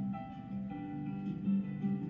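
Instrumental music led by a plucked guitar, with a melody moving from note to note over a steady low accompaniment.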